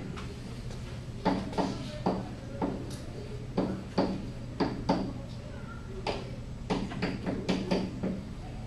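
A run of about fifteen sharp knocks or taps at uneven spacing, each ringing briefly, over a steady low room hum.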